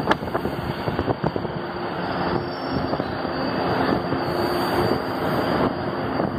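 São Paulo Metro train running through the station: a loud rumble of wheels on rail, with a run of sharp clacks in the first second, then a steady electric hum under the rumble.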